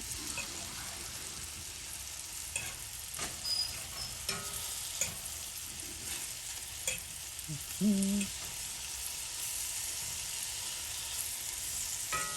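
Banana slices frying in butter in a hot cast iron pan: a steady sizzle, with a few light clicks of a utensil against the pan.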